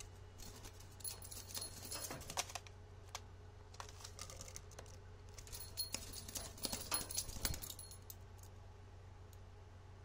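Pet European starling in a wire cage: two bouts of rapid clicking and rattling with a thin high ringing, about a second in and again around six seconds in, over a steady low hum.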